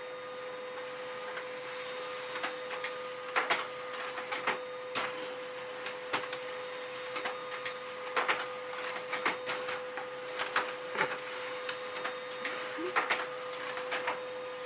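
A steady mechanical hum with one constant tone, broken by irregular sharp clicks and taps, a few close together and some louder than others.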